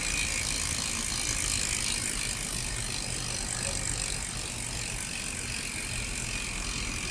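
Freehub of a full-suspension mountain bike's rear wheel ratcheting in a rapid, steady run of clicks as the wheel spins freely on a bike stand.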